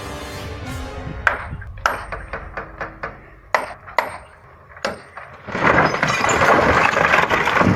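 A run of sharp knocks, some several in quick succession and a few leaving a short high ring, then about five and a half seconds in a loud, steady rushing noise like heavy rain sets in.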